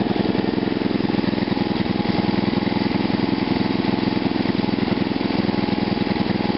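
Small OHC single-cylinder engine running on fuel fed through a homemade GEET reactor, running at a steady speed with an even, rapid firing beat.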